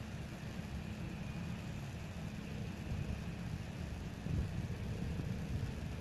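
Wind buffeting a phone's microphone as a low, uneven rumble that grows a little louder about two-thirds of the way in, with a faint, steady high cicada drone behind it.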